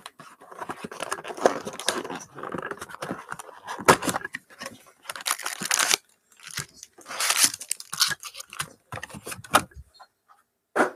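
A cardboard Panini Prizm trading-card hobby box being torn open and its foil-wrapped packs pulled out and stacked, crinkling and rustling. Handling is continuous for about the first half, then comes in a few shorter bursts.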